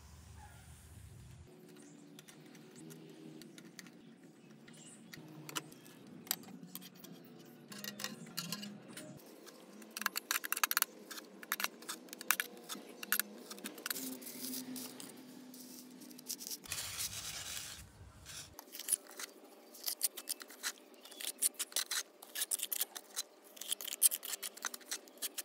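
Irregular clicking, tapping and light scraping of small hard pieces being handled, coming in quick clusters of ticks that grow busier about ten seconds in and again near the end.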